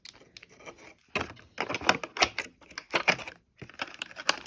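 Plastic product packaging being handled and opened by hand: a dense run of sharp clicks and crackles, loudest in the middle, with a brief pause before more handling near the end.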